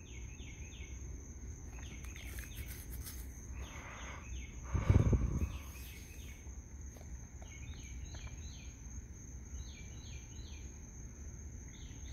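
Night-time insect chorus: a steady high trill, with short groups of three or four high chirps repeating every second or two. There is scattered rustling, and a brief loud low thump about five seconds in.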